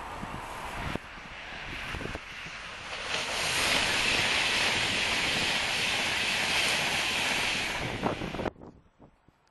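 Diesel multiple-unit passenger train passing at speed close below: a rushing noise of wheels and air that grows loud about three seconds in and holds, with wind buffeting the microphone, then cuts off suddenly near the end.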